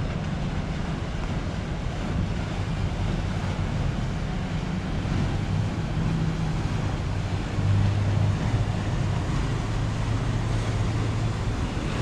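Steady low drone of a ship's engines under a broad hiss of wind on the microphone. The drone grows a little louder for about a second, roughly two-thirds of the way through.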